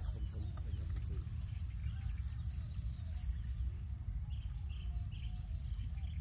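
A small bird repeating short, high chirps, about two a second, which stop a little past halfway through, over a steady low rumble.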